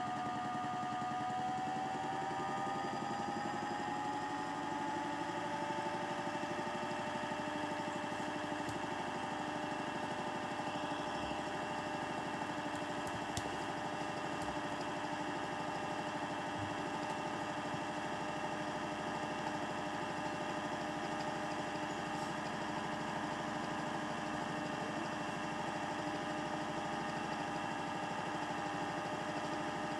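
Toy Miele washing machine's small electric motor spinning the drum in its final spin, a steady whine that rises slightly in pitch over the first few seconds and then holds.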